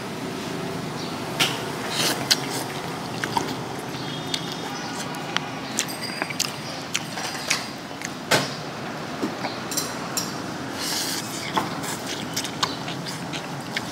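Street-food stall ambience: a steady background hum with scattered sharp clinks and knocks of tableware and utensils.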